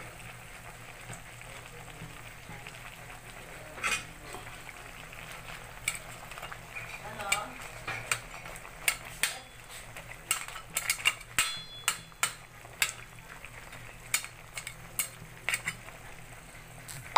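Crab and vegetables simmering in coconut milk with a faint sizzle, while a spatula stirs them and knocks against the metal pot. The knocks come as many short sharp clicks from about halfway in.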